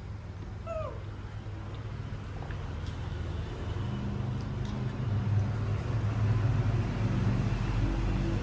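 A baby monkey gives one short squeak about a second in, over a low steady hum that grows louder from about halfway.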